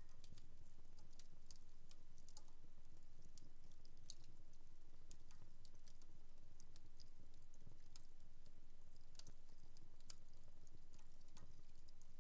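Wood fire in a home fireplace crackling: irregular small pops and ticks, several a second, over a faint steady low rumble.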